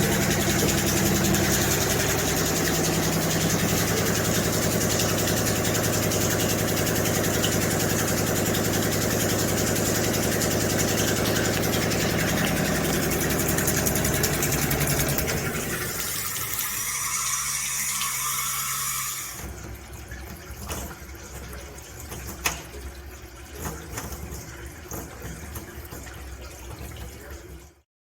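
A motor runs with a steady, even hum for about fifteen seconds, then fades and stops abruptly a few seconds later. Quieter scattered clicks and knocks follow.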